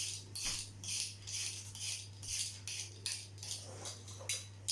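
Rhythmic scraping strokes, about three a second, as potatoes are peeled for homemade chips.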